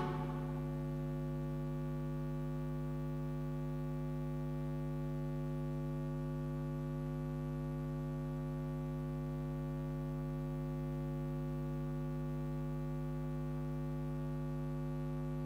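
Steady electrical mains hum, one low buzzing tone with a stack of overtones, left once the dance music cuts out right at the start.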